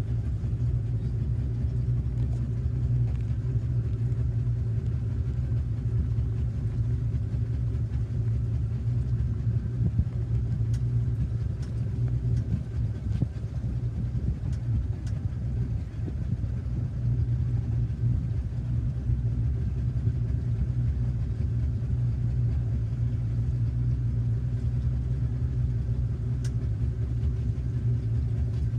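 Motorboat engine running steadily while the boat is under way, a low even drone.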